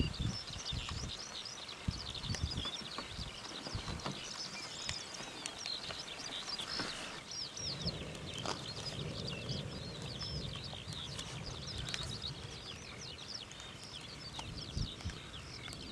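Small birds singing over open farmland: a dense, unbroken stream of short high chirps. Beneath it, irregular low gusts of wind buffet the microphone, heaviest a little past the middle.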